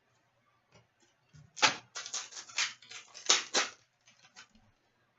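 Trading-card pack wrapper and cards being handled, with a quick run of about eight crackles in the middle and a few faint clicks around it.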